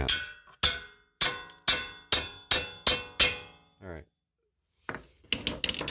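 Hammer tapping an Allen wrench seated in a rear brake caliper's hex-head guide pin bolt to drive the bolt tight: about eight ringing metal strikes, roughly two a second, stopping a little past halfway.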